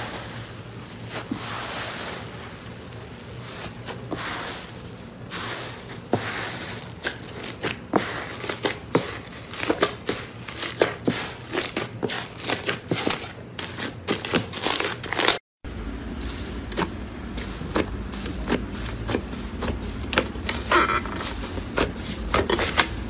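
Hands squishing and stretching airy cotton slime, making crinkly, crackling sounds that build into rapid sharp snaps and pops. After a sudden cut about two-thirds through, white slime is kneaded with scattered pops over a steady low hum.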